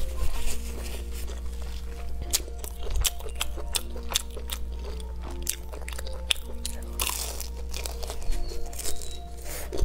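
Crunchy chewing of spicy skewered food, many sharp crunches in a row, over background music with long held notes.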